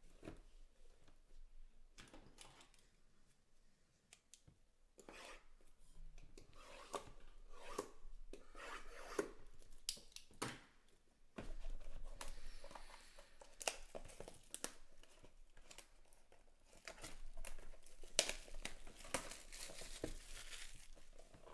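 Plastic shrink wrap being torn and crinkled off cardboard trading-card boxes, mixed with the boxes knocking and sliding as they are handled. The tearing and crinkling comes in several spells, the longest near the end.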